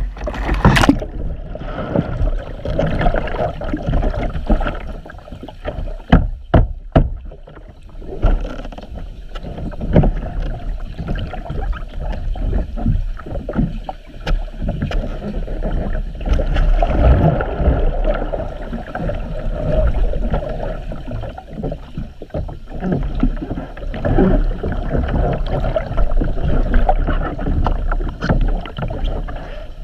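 Water splashing and churning around a capsized kayak, heard muffled from underwater, with bubbling and knocks of the paddle and hull as the upside-down kayaker sets up and works at a roll. A few sharper knocks stand out about six to seven seconds in.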